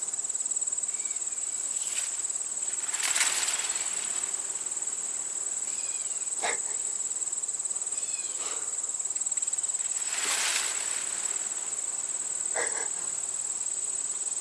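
Steady high-pitched insect chorus of late-summer crickets. About three seconds in and again about ten seconds in there is a short louder rush of noise, with a few faint short chirps scattered between.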